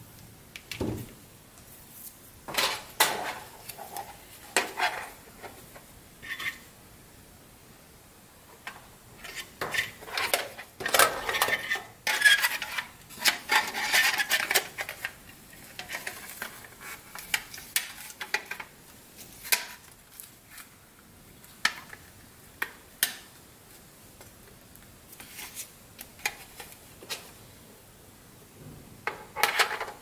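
Hard plastic housing parts of a joystick remote-control station being handled and fitted together: scattered clicks, knocks and clinks, with a dense run of clattering in the middle.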